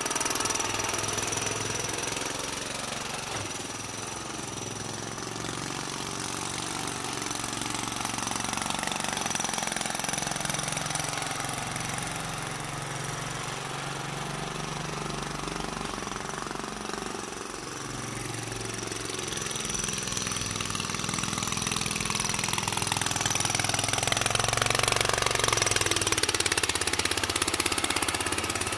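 Small Lister engine of a Wrigley auto truck chugging with a rapid beat as the truck is driven around. It grows fainter as the truck moves off, then louder as it passes close near the end.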